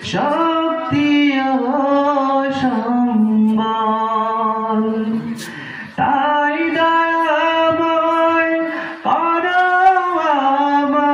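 A man singing an Islamic gojol (Bengali devotional song) unaccompanied into a microphone, in long held notes with ornamented, wavering turns. He breaks off briefly for breath about six seconds in and again about nine seconds in.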